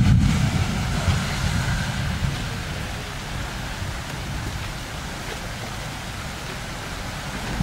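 Steady rain and wind noise during a thunderstorm, with a low rumble dying away over the first two seconds.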